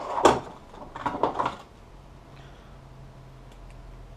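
Objects being picked up and moved about on a workbench: a few short knocks and rustles within the first second and a half. After that comes only a faint steady low hum.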